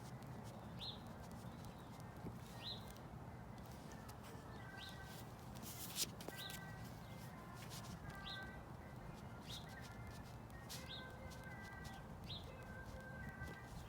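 Songbirds chirping: one bird repeats a short, rising chirp about every second and a half, while other birds whistle steady notes lower in pitch. A single sharp tap about six seconds in is the loudest moment.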